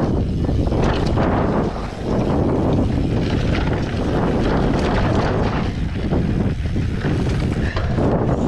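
Wind rushing and buffeting the microphone of a camera on a fast-moving electric mountain bike. A steady loud roar with scattered knocks, briefly easing about two seconds in.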